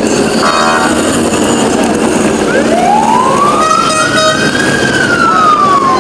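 An emergency vehicle siren wailing once, its pitch sliding slowly up from about two and a half seconds in and then falling away, over steady street traffic noise. A short horn toot sounds about half a second in.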